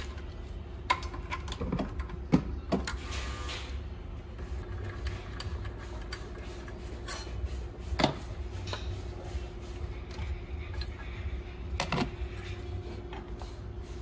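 Hand tools working in a car's engine bay: scattered clicks and a few sharp metal knocks, the loudest about two and a half seconds and eight seconds in, over a steady low hum.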